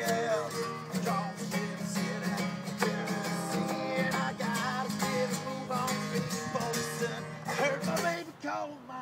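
Acoustic guitar strummed, playing a tune.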